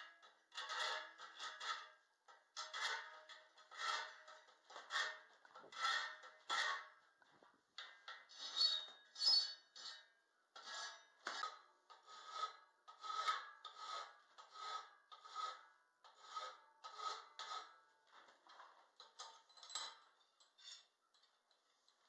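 Hand file rasping back and forth on a steel reinforcement bar clamped in a bench vise: a scrape on each stroke, roughly one to two strokes a second, with a brief pause about seven seconds in.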